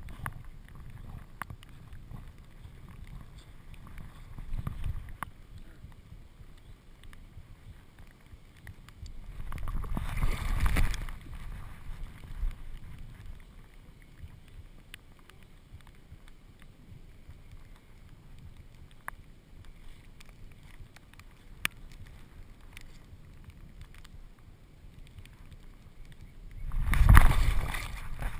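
Water sloshing and splashing around a dog wading and swimming, heard close up from her back over a low rumble. It swells into two loud rushes of splashing, about ten seconds in and again near the end.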